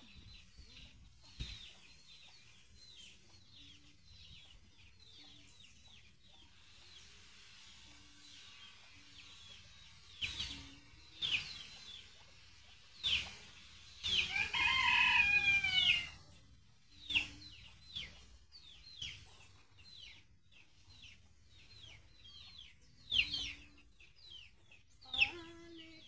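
A rooster crows once near the middle, a call about two seconds long and the loudest sound here. Short clucks and many quick, repeated bird chirps run through the rest.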